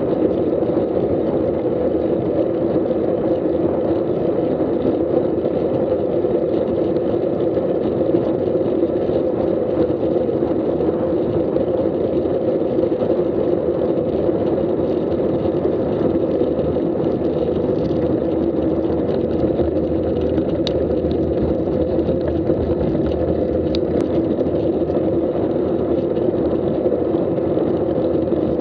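Steady wind rush and road rumble on a bicycle-mounted action camera's microphone while riding at about 12 to 17 mph.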